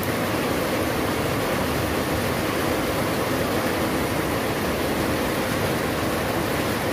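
A steady, even hiss of background noise that does not change.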